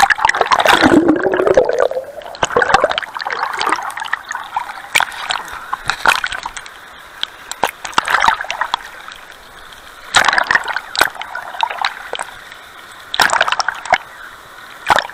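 River water splashing and gurgling around a waterproof camera dipped under and out of a shallow cascade, with a loud plunge and bubbling in the first two seconds, steady rushing water, and further bursts of splashing about ten and thirteen seconds in.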